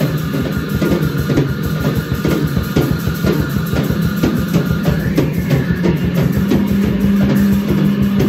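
Improvised noise-rock jam: a drum kit played in fast, dense strokes under a held low electric bass note that swells louder in the second half, recorded on a single cell-phone mic.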